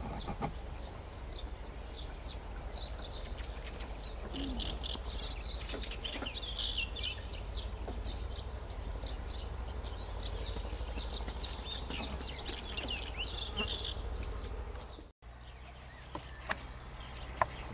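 Continuous high-pitched chirping and trilling from small wild creatures, busiest in the middle, over a low steady rumble; the sound drops out for a moment about fifteen seconds in.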